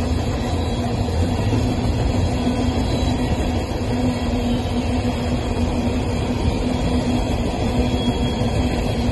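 Coal train's freight cars rolling past on the rails: a steady rumble of wheels on track with a faint steady hum running through it.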